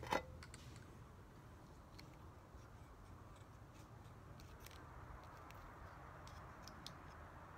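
Faint scattered clicks and ticks of the small metal pipe tools (scraper, tamper, poker) on a Baofa pipe lighter being unfolded and handled, over low room hiss. A single sharp knock comes right at the start.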